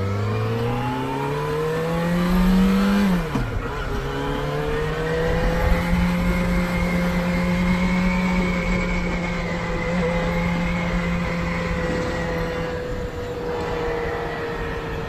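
Motorcycle engine accelerating: its note climbs for about three seconds, drops sharply at a gear change, then holds steady at cruising speed. Wind rumble on the microphone runs underneath.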